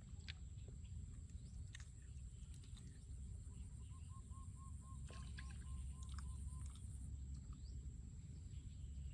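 Faint outdoor ambience with a low rumble and distant bird calls, including a run of about ten quick, evenly spaced notes around the middle.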